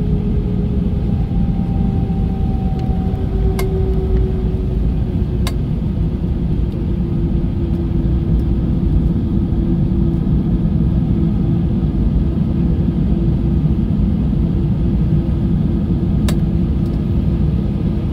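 Airbus A320 cabin noise during taxi, heard from a window seat over the wing: the jet engines run at low power as a steady low rumble. A humming tone drifts slightly lower in the first few seconds, and there are a few sharp clicks, about four and six seconds in and again near the end.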